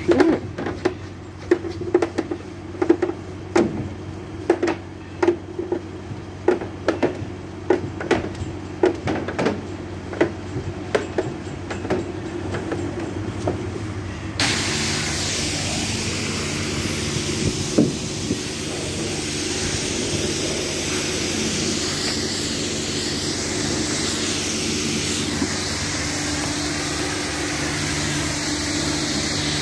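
Jet-wash hose-fed brush scrubbing a van's panels in a run of quick irregular strokes, over the steady hum of the wash bay's pump. About halfway through, pressure-washer water switches on suddenly as a steady hiss, with the pump hum still under it.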